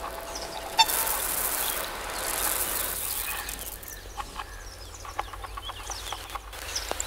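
Experimental sound-art recording: a sharp click about a second in, a hiss that swells and fades, then a scatter of small clicks and short chirps.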